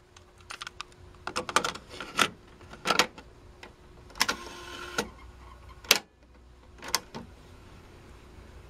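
Fisher Studio-Standard double cassette deck being loaded and started: a run of plastic clicks and clunks as the cassette goes in, the door snaps shut and the play key is pressed, with a short whir of the tape transport engaging about four seconds in.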